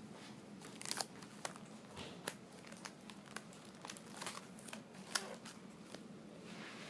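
Faint, irregular crinkling and rustling of something being handled, with scattered light crackles.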